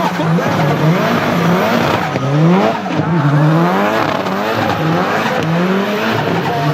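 Tuned, turbocharged Nissan 200SX engine being revved hard, its pitch rising and falling over and over as the throttle is worked, over a haze of tyre noise while drifting.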